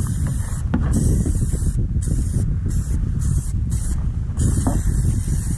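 Aerosol can of plastic protectant spraying onto engine-bay plastics in short bursts, the high hiss stopping and starting about six times, over a low rumble.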